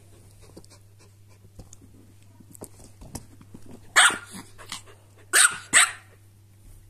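Dogs barking sharply over a toy: three loud barks, one about four seconds in and two in quick succession soon after, following a few seconds of faint scuffling.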